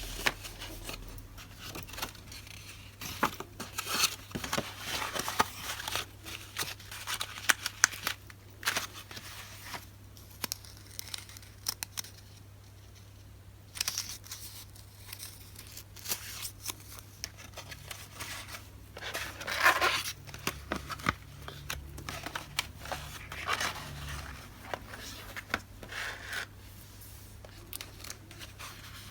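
Paper goods and their packaging being handled and unwrapped by hand: irregular rustling, crinkling and clicking of paper and plastic, in bursts with short pauses.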